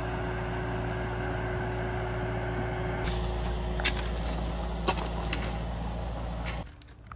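Bobcat T190 compact track loader's diesel engine running steadily under load while it pushes dirt. From about three seconds in, a few sharp knocks of shovels striking stony ground sound over it, and the engine sound cuts off abruptly near the end.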